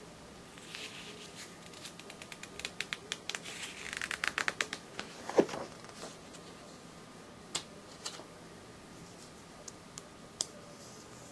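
Paper pages of a ring-binder catalog being handled and turned: a quick flurry of page flicks and rustling, a louder slap about five seconds in as a page lands, then a few light clicks of paper.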